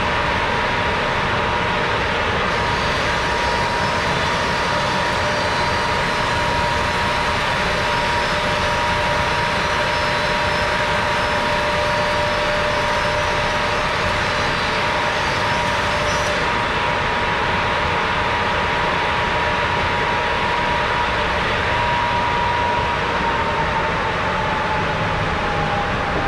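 Wood planer running with a loud, steady whine from its spinning cutter head. Near the end the whine starts to fall in pitch as the machine is switched off and the cutter head winds down.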